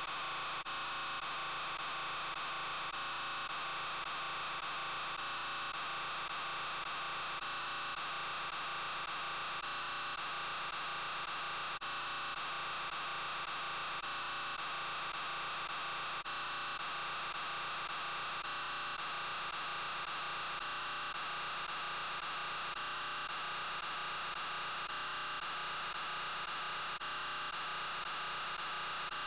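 A steady, dense din made of the 'I'm Peppa Pig' voice clip layered over itself a huge number of times, the separate voices merged into a noise-like wall with a faint pulse about every second and a half.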